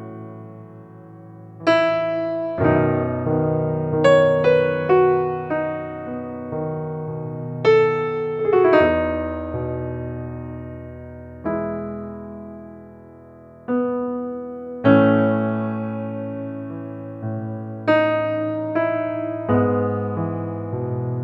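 Slow, gentle piano music: soft chords and single notes struck every second or two and left to ring out and fade.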